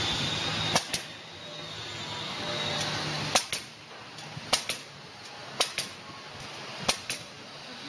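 Kodi Klip clip gun firing plastic clips onto rebar crossings: five sharp double clicks, about one each second.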